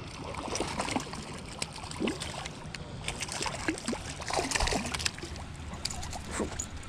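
A small hooked fish splashing at the water's surface as it is reeled in on a spinning reel and lifted onto the bank. Through it run scrapes and clicks of a fleece sleeve rubbing against the camera.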